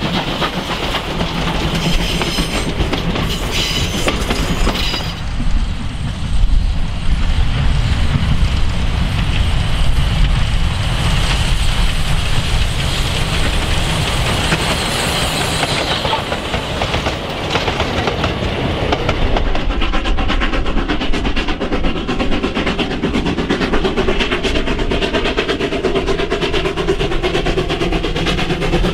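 South African Class 19D 4-8-2 steam locomotive hauling a passenger train, working hard, with its exhaust and the clatter of wheels over the rail joints. The sound changes abruptly a few times between takes.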